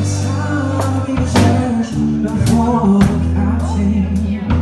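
Live rock trio playing a song: acoustic guitar, electric bass and drum kit, with a male lead vocal singing over them.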